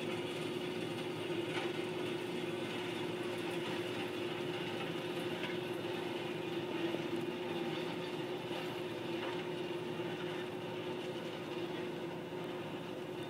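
Railroad ballast regulator working along the track, its diesel engine and machinery running steadily with a constant hum.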